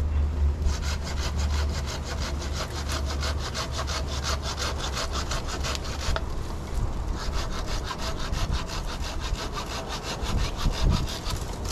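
Hand saw rasping through wood in rapid, even strokes, in two long stretches with a pause of about a second just after the six-second mark, over a steady low hum.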